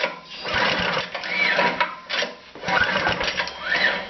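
Snowblower engine cranked over by its recoil pull-starter, twice in quick succession, each pull a whirring rattle about a second and a half long whose pitch rises and falls. The engine turns freely without firing, since its own spark plug is out for a spark test with a known-good plug.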